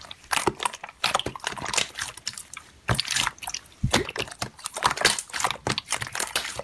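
Hands kneading and squeezing clear slime, giving wet squelches and many irregular sticky pops and crackles.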